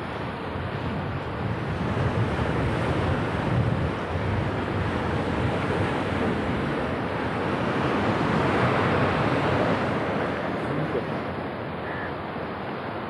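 Rough sea surf breaking and washing against a concrete seawall, with strong wind buffeting the microphone. The rush swells louder a couple of seconds in and again about eight seconds in.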